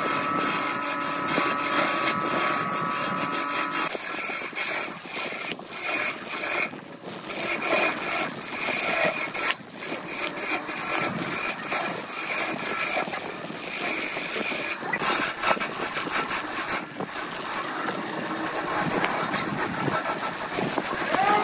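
BURT wood lathe running while a hand-held turning tool cuts a spinning laminated wood blank: a rough scraping hiss broken by frequent short catches and lifts of the tool. A steady whine sits under it for the first few seconds.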